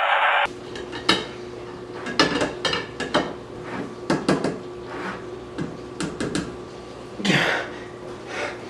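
A sword blade clinking, tapping and scraping against a pickle jar's metal lid and glass: a string of sharp clicks and knocks, irregularly spaced, with a longer scrape about seven seconds in.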